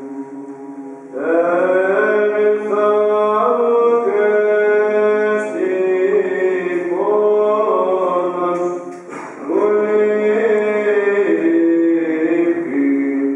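Greek Orthodox Byzantine chant of a memorial service: a melodic line sung over a held drone note. At first only the held note sounds. The melody comes in a little over a second in, breaks off briefly about nine seconds in and then resumes.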